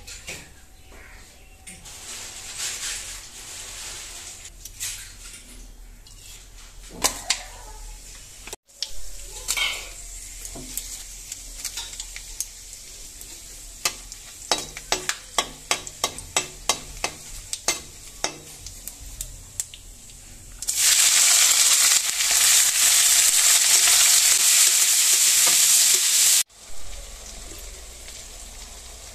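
Oil sizzling in an iron kadai as garlic, dried red chillies and sliced onions fry, with a steel spatula stirring and tapping against the pan in quick runs of clicks. About two-thirds through, the sizzle turns to a loud, steady hiss for about five seconds.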